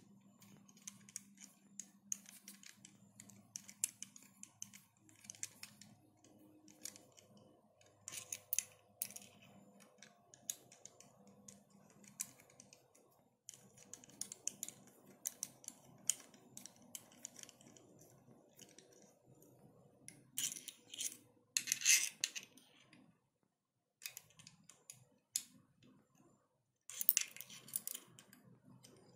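An Allen key clicking and clinking against small screws and the metal carriage plate and stepper motor bracket of a Creality Ender 3 as they are screwed together, many light irregular ticks. Two louder scraping stretches come about two-thirds of the way in and again near the end.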